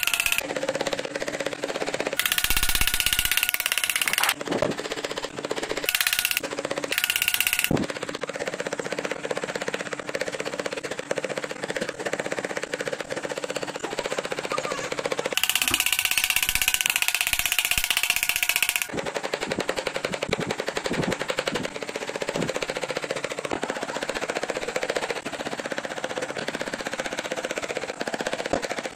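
Hand chisel cutting grooves into a wooden panel: a fast run of crisp clicks and scraping cuts. There are a few louder, hissier stretches, the longest from about 15 to 19 seconds in.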